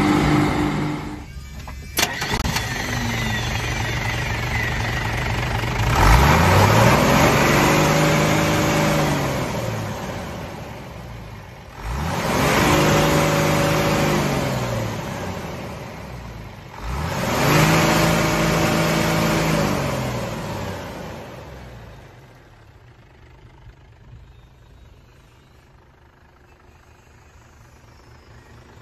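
Hino J08C inline-six diesel engine of a 1996 Hino Ranger truck idling, then revved three times, each rev climbing quickly and falling back slowly to idle over a few seconds. A single sharp click comes about two seconds in, and the sound drops much quieter for the last several seconds.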